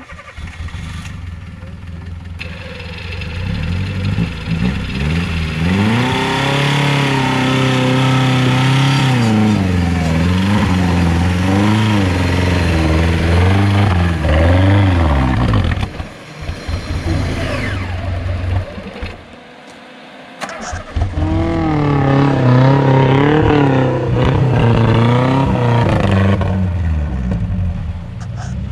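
4x4 off-road vehicle's engine revving loudly, its pitch rising and falling again and again. It drops back for a couple of seconds past the middle, then revs up and down again.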